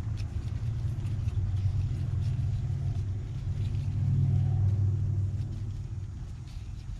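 A steady low rumble that swells about four seconds in and then eases off, with a few faint clicks over it.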